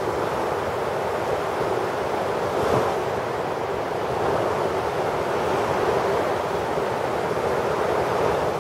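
Small sea waves breaking and washing ashore in a steady surf hiss, a little louder about three seconds in, with wind buffeting the microphone.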